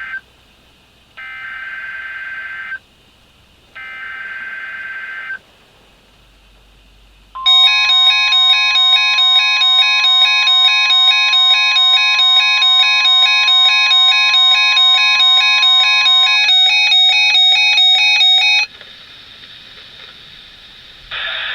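NOAA Weather Radio EAS test: the end of one SAME header data burst and two more full bursts, each a harsh warbling screech of about a second and a half, then the steady 1050 Hz warning alarm tone. A rapidly pulsing electronic beep with many overtones sounds over the alarm tone, runs on briefly after it stops, and then gives way to a low hiss.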